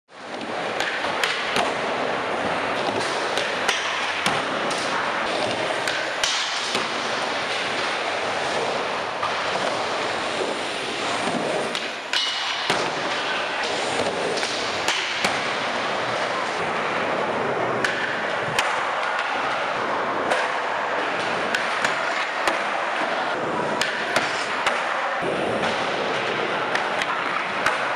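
Skateboard wheels rolling continuously over ramps and floor, broken by frequent sharp clacks and slaps of the board popping and landing.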